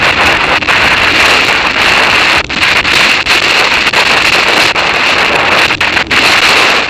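Wind rushing hard over a bike-mounted action camera's microphone on a downhill bicycle descent, a steady loud hiss broken by a few brief dips.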